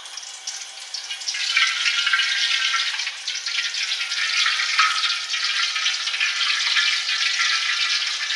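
Crayfish being par-fried in hot oil in a wok: a steady sizzle thick with crackles. It builds up about a second in as the hot oil is ladled over them.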